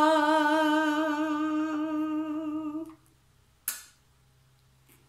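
A woman's voice holds the last note of a traditional Asia Minor folk song, a single long note with vibrato that stops about three seconds in. A short puff of noise follows under a second later.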